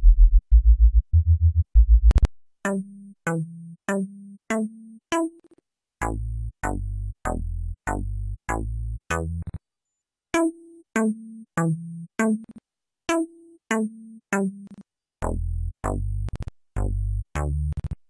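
Ingo1 software synthesizer playing bass presets. It plays short staccato bass notes at about two a second, each with a bright click on the attack and a falling filter sweep. In the first two seconds there is a heavier run of deep sub-bass notes. The sound stops briefly twice as the presets change.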